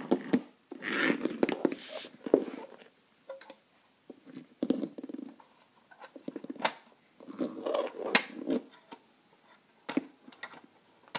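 Plastic Schleich toy horse and toy horse trailer being handled: scattered clicks, knocks and rubbing of plastic parts on a wooden floor.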